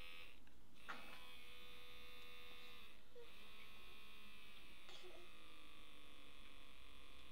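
Small DC motor whining at high speed, cutting out briefly twice near the start, then its pitch sliding down as the potentiometer is turned and the motor slows.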